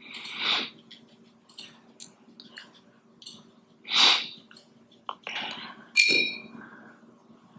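A person breathing through the nose in a few short, separate sniffs and exhales, one near the end with a faint whistle, over a faint steady hum.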